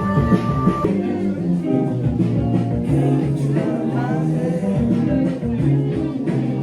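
Live band music: a voice singing over guitar and piano.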